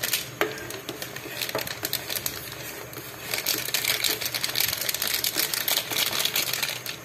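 Coffee gelatin mixture boiling in a stainless steel pot on a gas burner: a dense crackle of bubbling with many small rapid clicks, growing louder about three seconds in.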